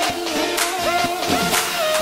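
Background dance music in a breakdown: the steady kick drum drops out, leaving melody lines with a held tone that slides down near the end.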